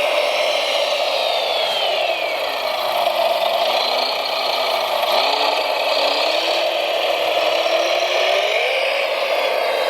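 Motors of radio-controlled construction vehicles whirring steadily; one motor slows, its pitch dropping about two seconds in, then speeds back up near the end.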